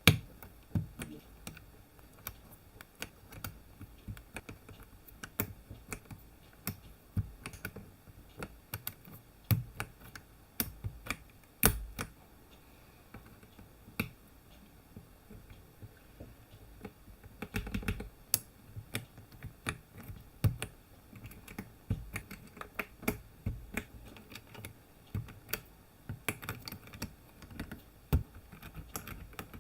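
Keys clacking on an Aula F99 mechanical keyboard fitted with Greywood V3 switches and PBT pudding keycaps. The presses are irregular sharp clicks, with denser flurries about halfway and again near the end.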